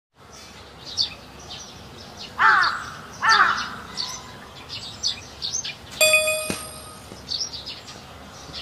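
A crow caws twice, with small birds chirping faintly throughout. About six seconds in, a short metallic ringing tone starts suddenly and dies away, followed by a click.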